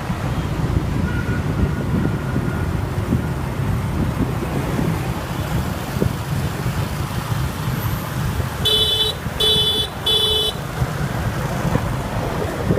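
Steady wind and road noise from riding on a motorbike in city traffic, with a vehicle horn beeping three short times about nine seconds in.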